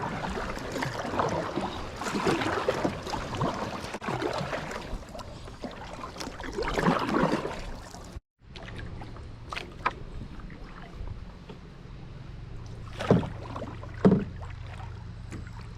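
Kayak being paddled along a creek: irregular paddle strokes and water splashing, with two sharp knocks a little before the end. The sound breaks off for a moment about eight seconds in.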